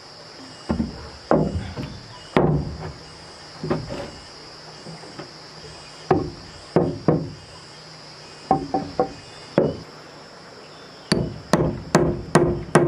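Hammer blows on wood, spaced irregularly at first, then a quick run of about three strikes a second near the end that ring with a pitch. A steady high insect drone runs underneath.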